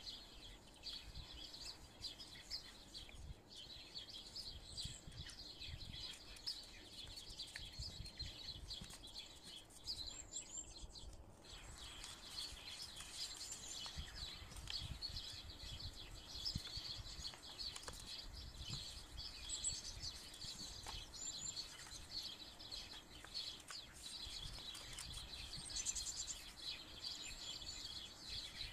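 Small birds chirping steadily in the background, with a few higher, quick chirps now and then. Faint rustles and creases of paper being folded by hand.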